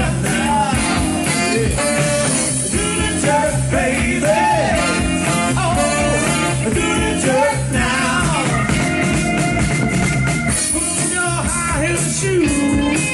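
Live soul band playing an up-tempo number with a steady beat, a saxophone carrying the lead line in bending phrases and held notes.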